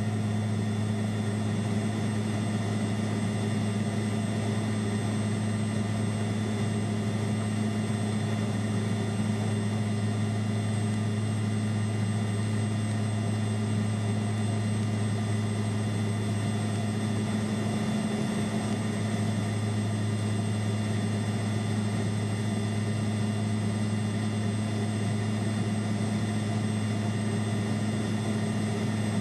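Steady in-flight drone of a Mitsubishi MU-2 Marquise's twin Garrett turboprop engines and propellers. A strong, even low hum sits beneath a constant higher whine, with no change in pitch or level.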